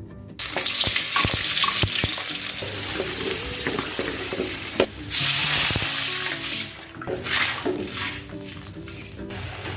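Chopped chilli and aromatics hit hot oil in an aluminium wok and sizzle loudly at once, about half a second in, while a wooden spatula stirs and scrapes against the metal. About five seconds in comes a second loud burst of sizzling. Guitar background music plays throughout.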